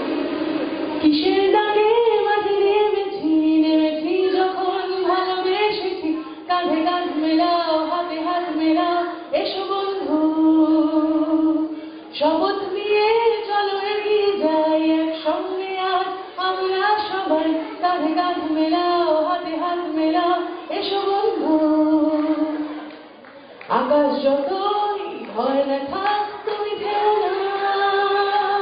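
A woman singing a song solo into a handheld microphone, without instrumental accompaniment. She sings in long, held phrases with brief breaths between them and a slightly longer pause a little before the end.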